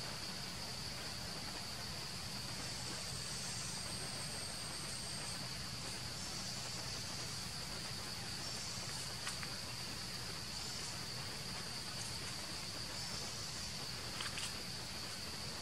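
Steady high-pitched drone of insects, one unbroken tone, over a faint low hum, with a few small clicks a little past the middle and again near the end.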